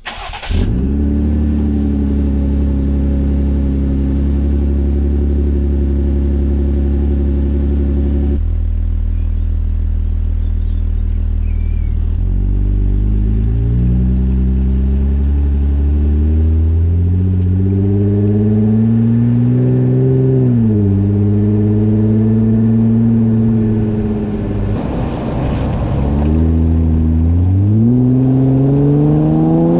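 Jeep Wrangler JL exhaust, muffler removed and a second resonator welded in, heard close at the side-exit tailpipe: the engine idles steadily for several seconds, then the exhaust note climbs as the Jeep pulls away. The pitch drops suddenly twice, about 20 seconds in and again near the end, each time climbing again as it accelerates through the gears.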